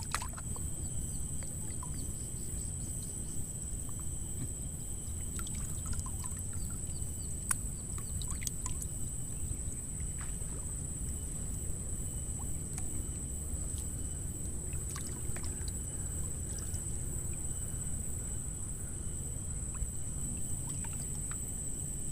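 Steady low wind rumble on the microphone with small waves lapping, a thin steady high tone and a few faint scattered clicks.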